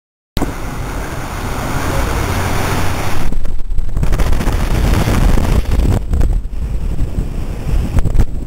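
Strong wind buffeting the microphone on a ferry's open deck, a heavy gusting rumble that starts suddenly about half a second in, with the rush of choppy sea beneath it.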